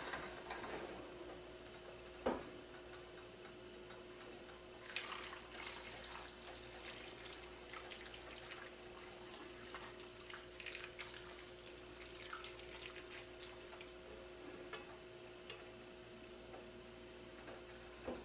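Hot broth poured from a frying pan over vegetables in a glass baking dish: faint trickling and splashing, with a light knock about two seconds in. A steady faint hum runs underneath.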